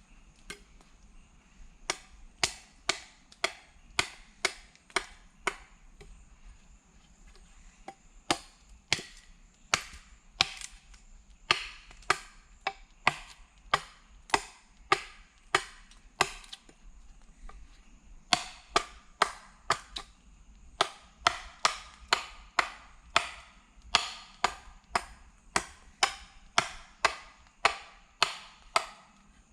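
A blade chopping at a piece of wood, shaping a stick into a digging tool. Sharp strikes come one to two a second in runs, with two short pauses.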